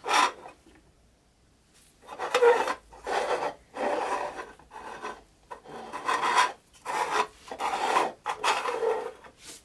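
Plastic toy-truck windshields, an old one and a newly made copy, set down on a wooden workbench with a sharp knock, then slid and rubbed against the wood in a run of repeated scraping strokes.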